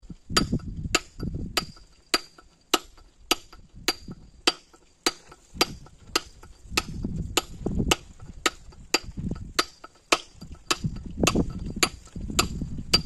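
Hammer striking a steel chisel against a block of stone in steady, even blows, a little under two a second, each with a short metallic ring. The chisel is scoring a line across the block, the groove along which the stone will be split.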